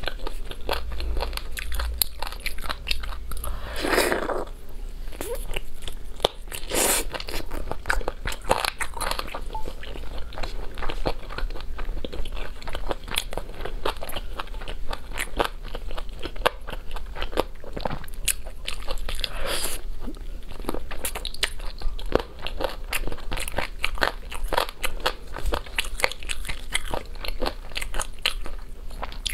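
Close-miked chewing and biting of sauce-glazed chicken wings, with a dense run of wet mouth clicks and smacks. A few longer, louder rasping noises come through, the first about four seconds in.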